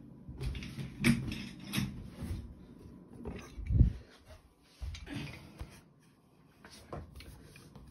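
Handling noise from a phone being picked up, carried and set down: irregular knocks and rubbing, with a heavy low thump just before four seconds in.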